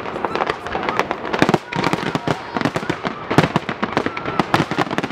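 Dense barrage of aerial fireworks shells bursting: rapid, overlapping bangs and crackling, several reports a second, without a break.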